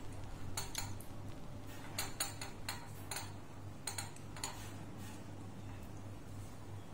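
Small metal spoon and fork clinking and scraping against a ceramic plate while cutting into a chocolate roll cake: about ten light clicks in quick clusters during the first half, then fewer. A steady low hum runs underneath.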